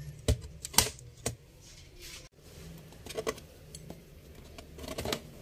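Sharp plastic clicks as a metal pick pries along the top edge of an HP EliteBook 8470p keyboard, popping its retaining latches free: three clicks in the first second and a half, then a few fainter ones later.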